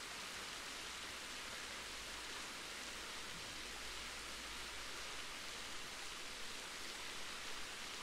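Awosting Falls waterfall rushing steadily: an even, unbroken hiss of falling water, brightest in the high range.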